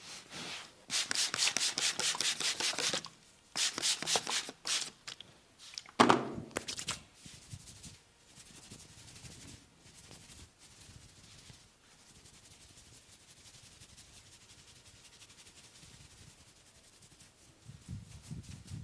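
Hands rubbing briskly over skin in quick repeated strokes, in two spells. A single louder sharp hit comes about six seconds in, and then it goes quiet.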